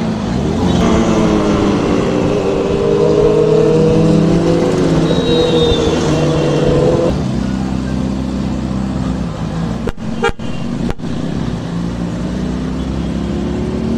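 Motor vehicle engines in heavy city traffic. One engine note rises and falls over the first seven seconds, joined by a held tone that cuts off about seven seconds in.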